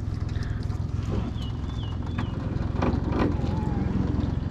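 Boat's outboard motor idling steadily, a low even rumble. A few short, high warbling calls sound over it about a second and a half in.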